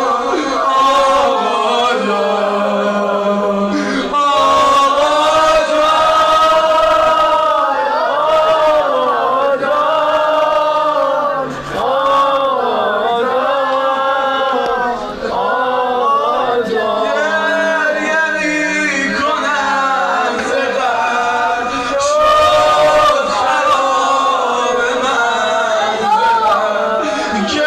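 A male maddah chanting a noha, a Shia mourning lament, in long sung phrases with notes that slide up and down.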